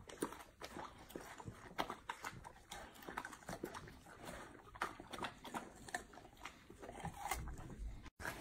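Two golden retrievers chewing and biting into watermelon slices: irregular wet crunches, several a second.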